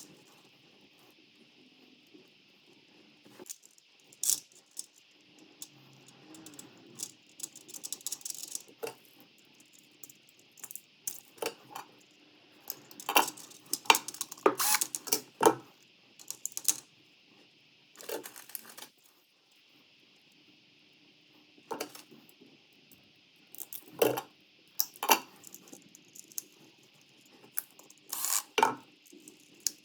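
Irregular small clicks, clinks and rattles of hard objects being handled, coming in scattered clusters over a faint steady hiss.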